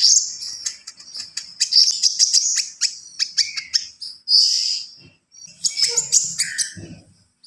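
A kolibri ninja sunbird (konin) singing hard: a rapid, busy stream of high chips, clicks and short trills, packed with mimicked 'isian' phrases. There are short pauses a little past the middle and near the end.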